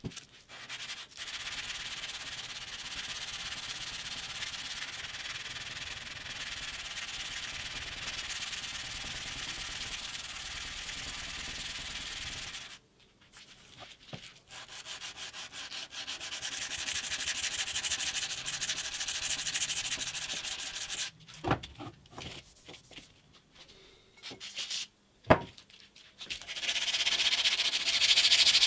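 Steel knife blade being hand-sanded with a hand-held abrasive strip to remove rust: a steady, rapid back-and-forth scratchy hiss. It pauses about 13 s in, and two sharp knocks fall in a quieter stretch later. The sanding then resumes louder near the end.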